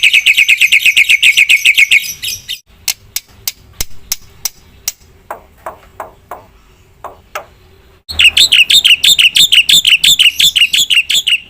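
Black-winged myna (jalak putih) calling loudly: a fast run of rapidly repeated chattering notes, then a few seconds of scattered short clicks and calls, then a second fast run of repeated notes.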